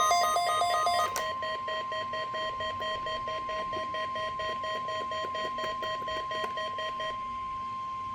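NOAA Weather Radio warning alarm tone: one steady tone at about 1050 Hz, sent as the weekly test of the alert system. Over it a separate alarm beeps rapidly in short pulses until about seven seconds in, after which the steady tone sounds alone.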